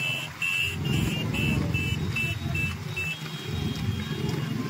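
Motorcycle engines and road rumble from a pack of bikes riding close together, with a high electronic beeping tone pulsing about three times a second that stops about three seconds in.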